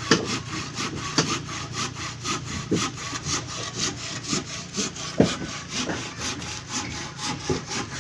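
Hand saw cutting timber in quick, even back-and-forth strokes, with a few louder knocks along the way.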